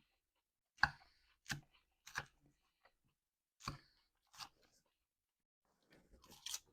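Crunchy lettuce salad being chewed close to the microphone: a run of sharp crunches about two-thirds of a second apart, a pause, then more near the end.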